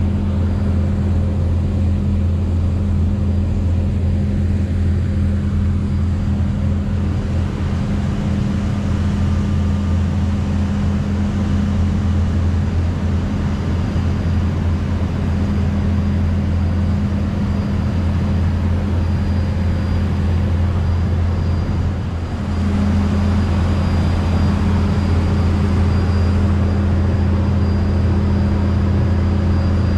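Steady, loud low machine hum, with a slight dip and change in tone about two-thirds of the way through.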